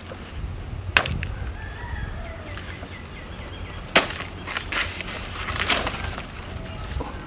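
Sharp knocks and cracks: a single sharp crack about a second in, another about three seconds later, then a quick run of cracking just before the end.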